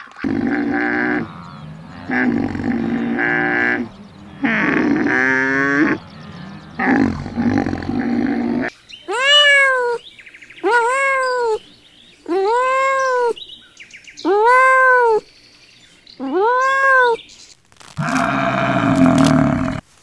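Domestic cat meowing five times in a row, about one call every two seconds, each call rising and then falling in pitch. Before that come several lower, drawn-out animal calls, and another lower call comes near the end.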